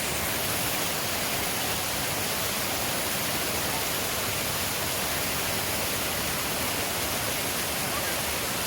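Steady rush of a mountain waterfall, an even hiss of falling water.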